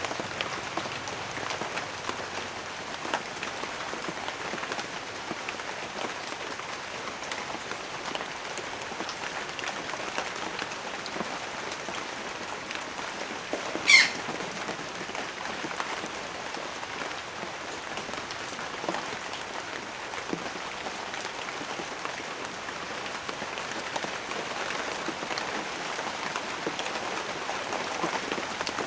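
Steady rain falling, a dense patter of drops on a surface. About halfway through, one brief, sharp high-pitched sound stands out above the rain.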